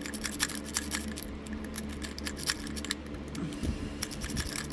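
Lock-pick rake working in and out of a Master Lock padlock's keyway: rapid, irregular small metallic clicks and scrapes as the rake bounces across the pin stacks.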